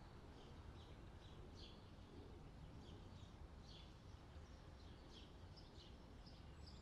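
Faint birdsong: small birds giving short, quick chirps, about two a second, over a low steady outdoor rumble.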